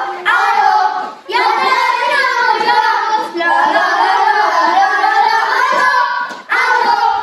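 Young children singing a song together in phrases, with short breaks between lines.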